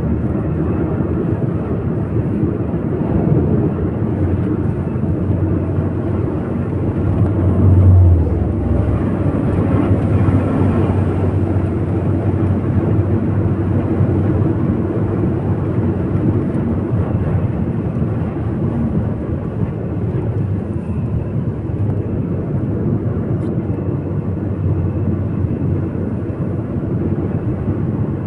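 A car driving: steady road and engine noise heard from inside the cabin, with a stronger low rumble for about a second roughly eight seconds in.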